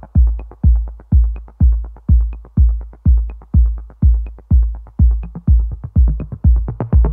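Electronic dance music: a deep, steady drum-machine beat about twice a second with a light high tick, the upper sounds building towards the end before a fuller arrangement comes in.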